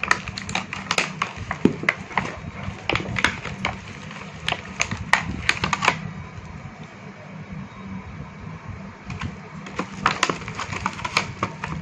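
Tubeless tyre puncture repair kit's tools and packaging being handled: an irregular run of clicks and knocks that pauses about six seconds in and picks up again near the end.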